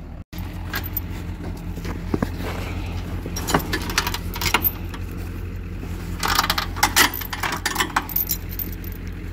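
Steel tow chain clinking and rattling as it is handled at a trailer tongue, in two bursts of clinks about a third of the way in and again toward the end. Under it, a pickup truck's engine idles with a steady low hum.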